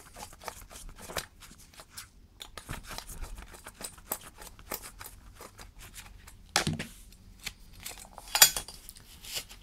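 Screwdriver backing small screws out of a metal plate inside plastic kitchen scales: a run of faint clicks and scrapes, with two louder knocks, one about two-thirds of the way through and one near the end, as the plate is handled.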